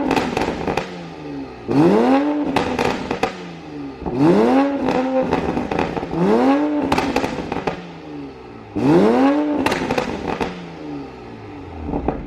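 2020 Toyota Supra's B58 turbocharged inline-six, fitted with a VRSF downpipe, revved repeatedly in free rev: about five blips, each rising and falling in pitch. Each rev is followed by pops and crackles from the exhaust as it falls back to idle, and the whole is very loud.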